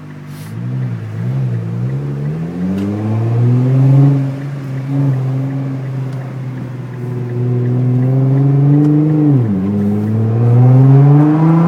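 Nissan GT-R R35's twin-turbo V6 pulling under load through a catless, non-resonated Meisterschaft exhaust. The engine note climbs for the first few seconds, holds steady, drops sharply about nine and a half seconds in, then climbs again near the end.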